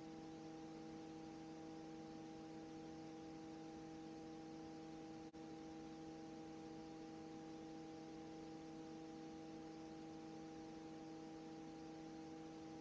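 Near silence: a faint steady hum of several fixed tones over light hiss, unchanging throughout.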